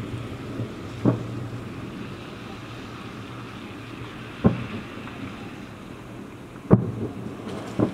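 Fireworks salute heard from about 7 km away: four dull booms, about a second in, near the middle, and twice near the end, over a steady low rumble.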